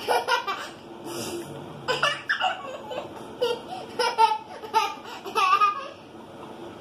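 A young girl laughing in a string of short, high-pitched bursts, which die away near the end.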